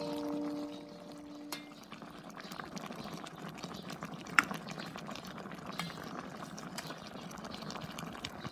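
Tomato-sauce fish stew simmering in a stainless steel pot: a steady bubbling hiss with scattered small pops and clicks as a ladle moves through it, and one sharper tap about four and a half seconds in.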